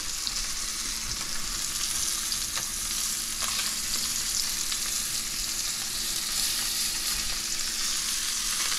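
Pompano fillets sizzling in smoking-hot avocado oil in a stainless steel pan: a steady frying hiss with a few faint pops.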